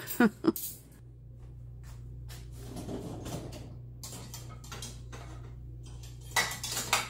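Dishes and cutlery clinking and clattering as a dishwasher is unloaded: a short burst of clatter at the start, scattered faint clinks, then another burst near the end, over a low steady hum.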